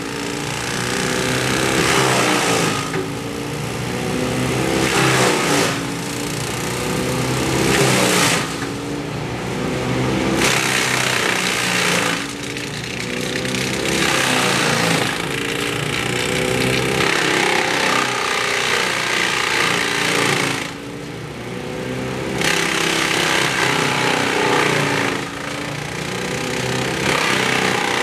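Petrol-engined tree-removal machine running hard. Its engine note sags and recovers every two to three seconds as it works through wood, with bursts of harsh cutting noise.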